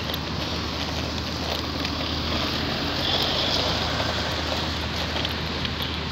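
Steady hiss of rain and traffic on a wet road, with a low engine hum underneath. It swells for a couple of seconds near the middle as a van drives past on the wet road.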